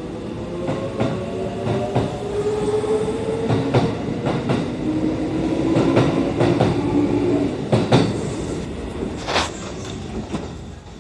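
Kintetsu electric commuter train running out along the platform. The motor whine rises in pitch as it gathers speed, and the wheels clack sharply over rail joints. The sound fades as the last cars pass.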